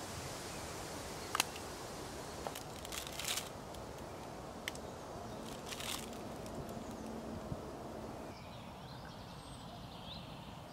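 Scattered crinkles and clicks of a plastic snack wrapper being handled and opened, over a steady outdoor hiss. After about eight seconds the hiss drops and a few faint chirps come through.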